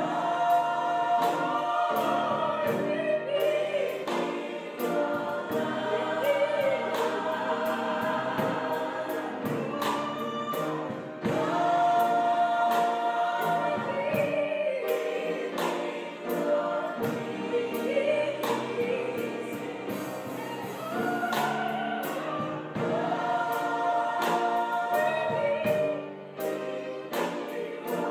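High school gospel choir singing in harmony, holding long chords, with a steady beat of sharp hits under the voices.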